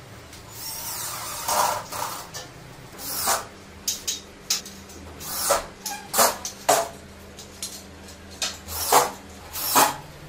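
Cordless drill-driver driving screws into a gypsum-board ceiling frame in a dozen or so short bursts at irregular intervals.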